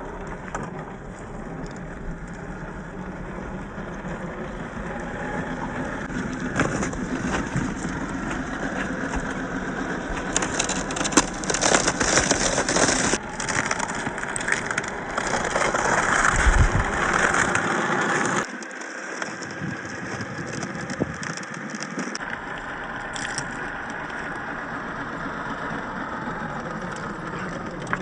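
Axial SCX10 III 1/10-scale RC crawler driving off-road: its brushless motor and drivetrain are running and its tyres are crunching over dirt and stones. The sound is loudest and busiest in the middle stretch and eases off suddenly a little past halfway.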